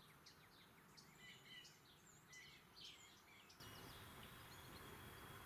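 Very faint outdoor field ambience with distant birds chirping. About three and a half seconds in, the background changes abruptly to a faint, steady high hum.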